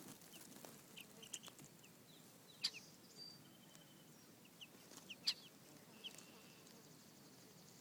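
Two-week-old baby chicks peeping softly in scattered short, high peeps. Two louder, sharp peeps stand out, one about a third of the way in and one past the middle.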